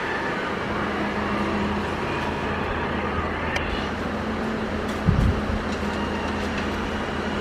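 Caterpillar 320 hydraulic excavator's diesel engine running steadily under load, with a short low thump about five seconds in.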